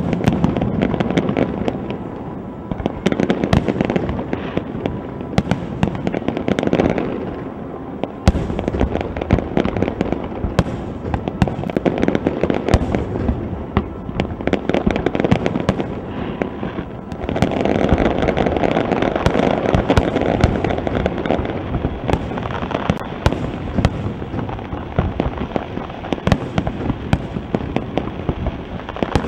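Aerial fireworks shells bursting in quick succession: a continuous barrage of booms and dense sharp crackling pops, with one especially sharp bang about eight seconds in.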